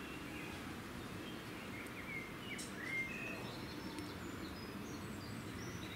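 Small birds chirping in short, high notes, several around two to three seconds in, over a steady low background rumble.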